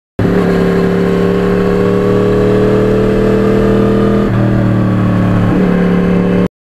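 Engine of a 2009 Yamaha R1 crossplane inline-four with a custom carbon exhaust, running steadily under way with its pitch slowly climbing. The tone changes abruptly about four seconds in and again near the end. The sound cuts in and out abruptly.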